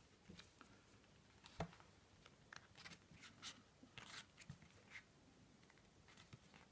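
Near silence with faint rustling of paper as a booklet's pages are flipped through, and one sharp click about a second and a half in.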